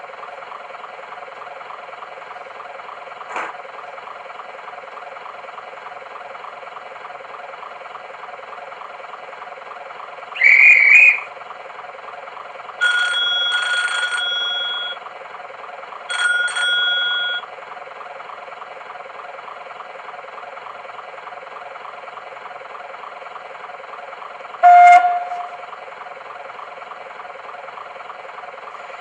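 Sound-fitted model GWR streamlined diesel railcar idling through its small onboard speaker, a steady engine drone with no deep bass. Partway through comes a short warbling whistle, then two horn blasts, the first about two seconds long and the second about one. Near the end there is a single short, sharp loud sound.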